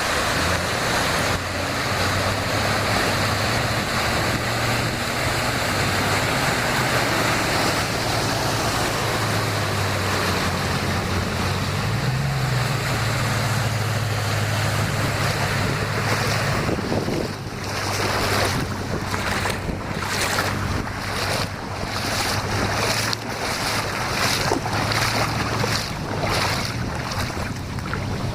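A car driving through deep floodwater, its tyres throwing up a continuous loud rush of spray over a steady low engine hum. After about sixteen seconds the rush breaks up into a run of separate swishes, roughly one a second.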